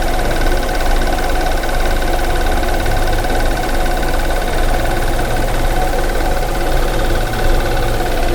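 2014 BMW 428i's 2.0-litre turbocharged four-cylinder idling rough and steady, close up in the engine bay. The rough running comes from the intake air hose after the mass airflow sensor having come completely off.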